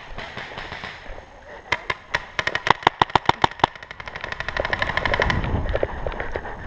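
Paintball marker firing a rapid string of shots, about six a second, starting about two seconds in. Fainter, faster shots follow, with a low rustling noise growing underneath near the end.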